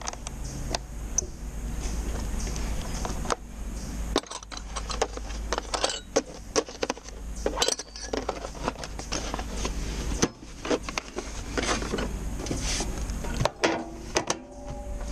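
Irregular light clinks, clatters and knocks of hard, mostly metal objects being handled, over a steady low rumble.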